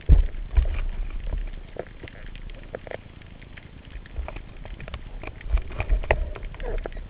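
Speargun shot heard underwater: a sharp, heavy knock right at the start, followed by scattered clicks and low knocks from the spear shaft and line as the speared gilthead sea bream hangs on it, with another cluster of knocks near the end.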